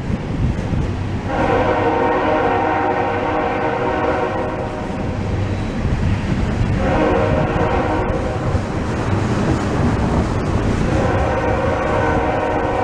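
Freight locomotive's air horn sounding a chord of several notes in three blasts: a long one starting about a second in, a shorter one just past the middle, and a third starting near the end. Under it runs the low rumble of the passing train.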